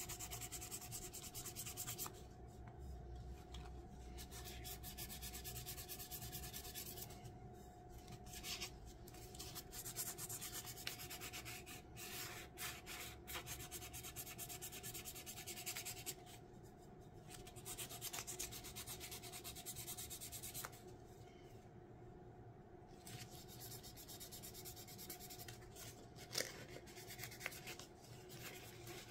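Sandpaper rubbed by hand in light strokes over the cured epoxy coat on a tumbler's rim, a faint scratchy hiss that stops for a moment several times. This is light sanding between epoxy coats. A faint steady hum runs underneath.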